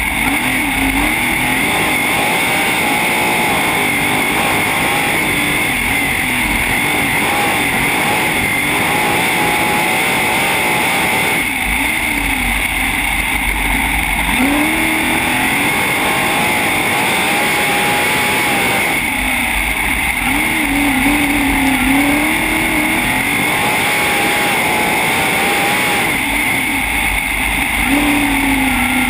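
Sprintcar's V8 engine heard from on board at racing speed, its pitch dropping and climbing again about every seven seconds as the throttle is lifted and reapplied around the ends of a dirt oval.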